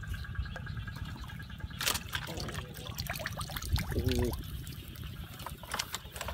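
Water trickling and dripping, with scattered clicks and knocks.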